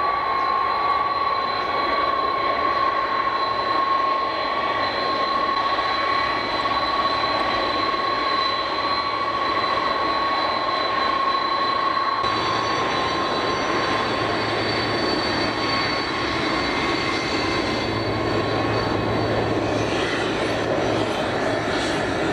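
Jet airliner engines running with a steady roar and a high, even whine; the sound shifts abruptly about twelve seconds in, where a higher whine takes over.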